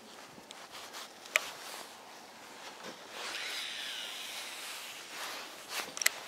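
Baitcasting reel being cast. There is a sharp click about a second in, then line whirs off the spinning spool for a couple of seconds, slowing as it goes. Near the end come a few clicks as the handle is turned to take up the line.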